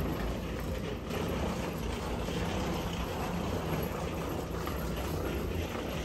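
Wheeled carry-on suitcases rolling and rattling along a jet bridge floor, over a steady low rumble.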